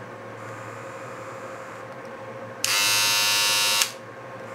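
Electric shaver switched on for about a second, giving a loud, high-pitched buzz that starts and stops abruptly about two and a half seconds in, over a faint steady hum.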